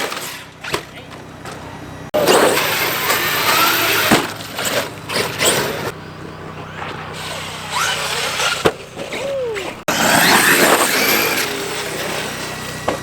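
Electric motors of large RC trucks whining and revving, their pitch rising and falling, in several short passages that cut off abruptly.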